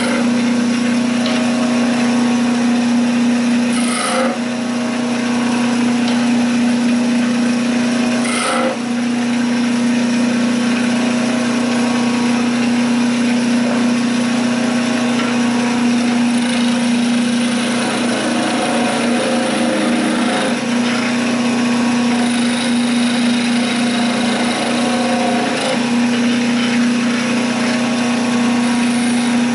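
Wood lathe running with a steady hum while a hand-held turning tool cuts the spinning wooden spindle at times, with two brief sharp sounds in the first several seconds.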